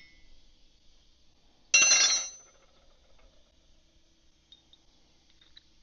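A single metal-on-metal clink with a brief ring, about two seconds in, as a steel tool or part is set down or knocked.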